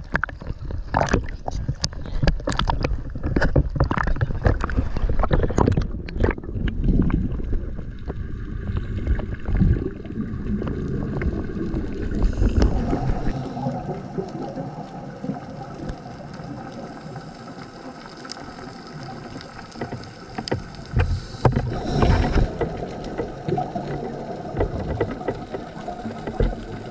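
Small waves slapping and sloshing against a camera held at the sea surface, with sharp splashes over a low rumble. About twelve seconds in, the camera is underwater: a steady hum made of several even tones, with a short louder rush a little after twenty seconds.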